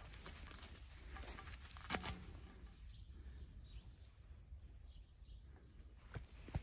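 A stiff, ice-crusted glove being pulled off a frozen metal pole: faint rustling of the frozen fabric with a couple of sharp crackles about one and two seconds in.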